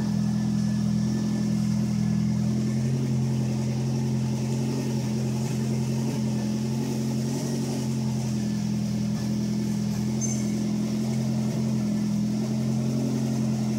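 Turbocharged Toyota Celica ZZT231's 2ZZ-GE 1.8-litre four-cylinder engine idling steadily, heard from inside the cabin.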